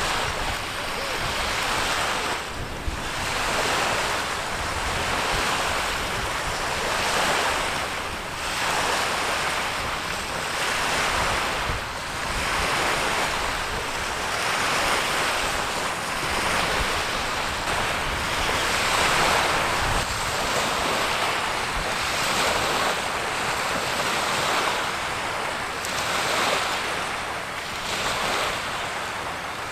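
Small waves washing onto a stony, seaweed-covered shore, the hiss swelling and falling every two to three seconds, with wind buffeting the microphone.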